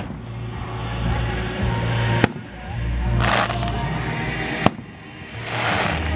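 Aerial firework shells bursting with two sharp bangs about two and a half seconds apart, with short bursts of hissing in between, over steady background music.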